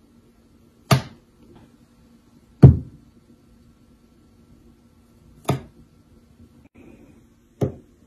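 Four sharp knocks, one every two seconds or so, of pieces of fruit being knocked on a countertop.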